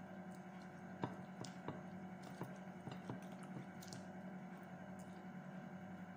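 Fingers squishing and picking through rice and cooked vegetables on a plate, with wet mouth sounds of chewing and a scatter of small clicks, mostly in the first half. A steady low hum runs underneath.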